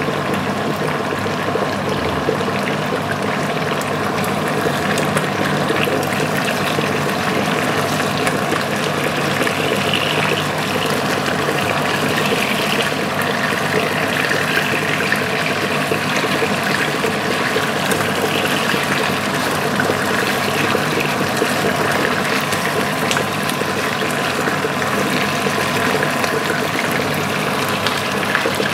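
Calf's liver frying in hot oil in a pan: a loud, steady sizzle that holds without a break.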